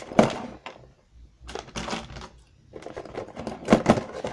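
Pens and pencils clicking and clattering against each other and the pencil case as they are handled and packed. The noise comes in several short spells of handling with brief pauses between.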